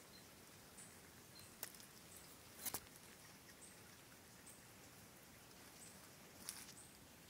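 Near silence: quiet woodland ambience with faint, short high-pitched chirps about once a second and a few brief soft crackles.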